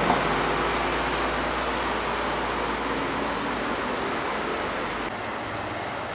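Lamborghini Urus twin-turbo V8 driving away, its exhaust and road noise fading slowly into a steady hiss. About five seconds in, the sound switches abruptly to a quieter street noise.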